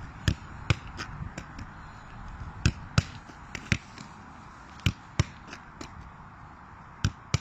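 A Gaelic football being kicked off the instep and caught, heard as a series of sharp thuds at uneven intervals, several coming in close pairs.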